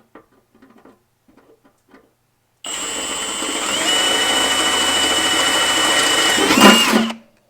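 Milwaukee M18 Fuel 2904-20 cordless hammer drill driver drilling in plain drill mode. After a few faint clicks, the motor starts about two and a half seconds in with a steady high whine. The whine steps up slightly a second later, is loudest just before the drill stops about seven seconds in.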